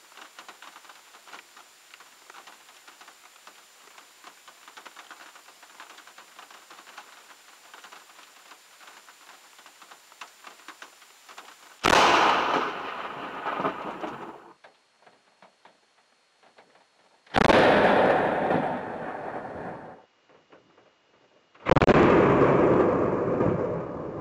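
Light rain pattering on a car windshield, then a very close lightning strike about twelve seconds in: a sudden, loud crack of thunder that dies away over about two seconds. The same loud burst comes twice more, each time cut off abruptly.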